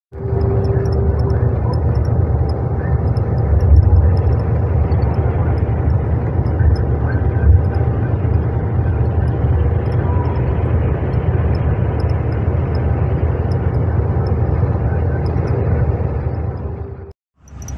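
Long-distance coach cabin noise while driving on the highway: a steady low engine and tyre drone with a faint constant whine. It drops out for a moment near the end.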